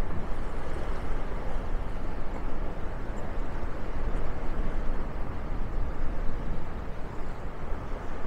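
Steady outdoor ambient noise: a low rumble with a hiss over it and no distinct events.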